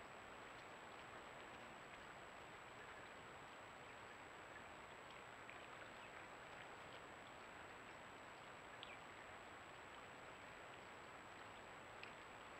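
Near silence: the steady hiss of a trail camera's microphone with a faint high-pitched whine, broken by a few faint short ticks.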